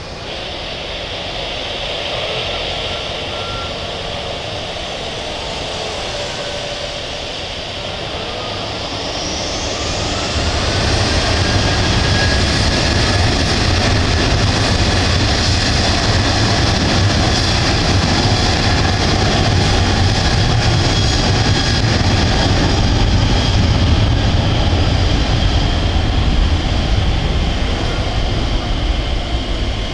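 Boeing 737-800 jet engines (CFM56-7B turbofans) running at low thrust. About ten seconds in they spool up, with a rising whine and a deep rumble as takeoff thrust is set, and then hold loud and steady through the takeoff roll.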